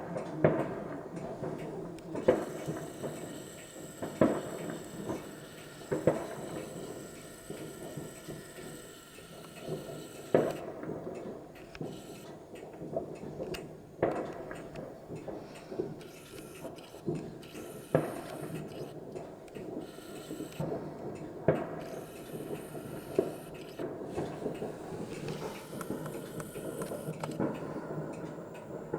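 Fireworks going off across a city: sharp bangs a few seconds apart over a continuous patter of smaller pops and crackle.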